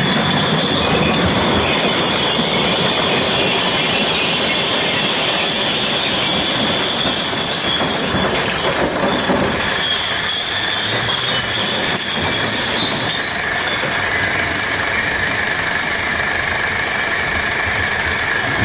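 Glass recycling truck's rear bin-lift and sorting-tray mechanism moving under hydraulic power, with a steady high whine over the running truck engine.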